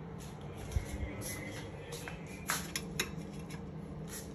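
Metal tongs clinking and scraping against a steel bowl while marinated fish pieces are lifted out, with a few sharp clinks about a second in and near the three-second mark, over a steady low hum.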